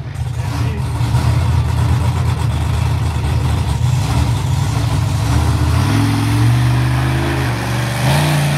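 Swamp Thing monster truck's engine running loud with a deep rumble, then revving up in steps about six seconds in as the truck pulls away.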